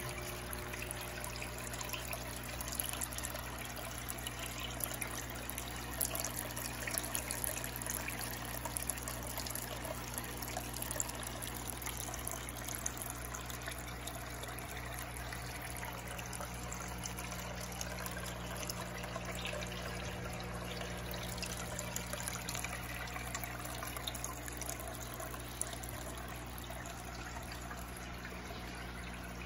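Aquarium water trickling and splashing steadily, with many small crackling drips, over a steady low hum.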